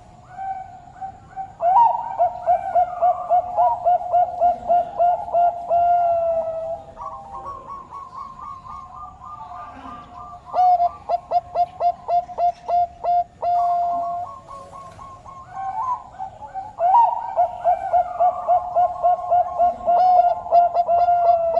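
Zebra dove (the Thai-bred 'Bangkok' song dove, perkutut bangkok) cooing: long phrases of rapid rolling coo notes, three phrases with short, quieter gaps between, a second higher coo line sometimes overlapping.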